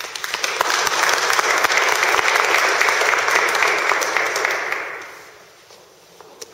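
Audience applauding, swelling in the first second and dying away about five seconds in.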